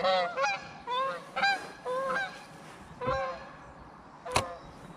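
Waterfowl calling: a run of short, pitched calls that rise and fall, about three to four a second, dying away after about three seconds. A single sharp click comes near the end.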